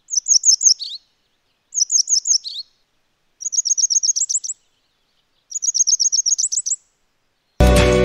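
Grey wagtail calls: four bursts of quick, high-pitched notes, each about a second long, with silences between. The first two are short runs of four or five notes that drop lower at the end; the last two are longer runs of about a dozen notes that rise slightly toward the close.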